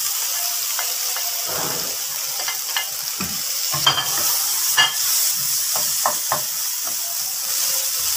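Cubed potatoes sizzling steadily in hot oil and spices in a frying pan, stirred with a spoon that scrapes and clicks against the pan now and then.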